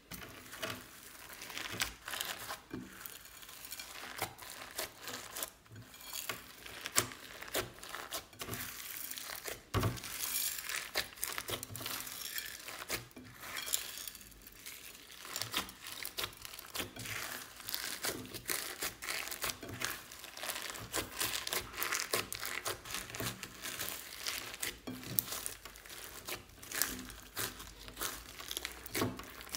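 Hands kneading and squishing glossy slime packed with plastic beads, foam cubes, sequins and glitter in a glass bowl: a constant, irregular run of sticky crackles, pops and small clicks.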